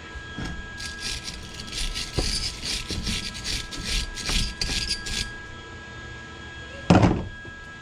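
Welder arc crackling and hissing in a run of short bursts for about four seconds while welding onto a broken cylinder-head stud to extract it, followed near the end by a single loud knock.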